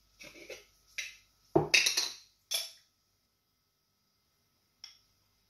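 Metal spoon clinking and scraping against a glass jar, a cluster of clatters in the first three seconds, then a single faint click near the end.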